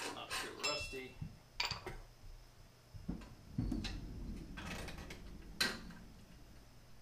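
Metal clicks and clinks of rear drum brake hardware (springs, pins and shoe parts) being worked loose and handled on the backing plate, with a dull thump about three seconds in and a sharp click near the end.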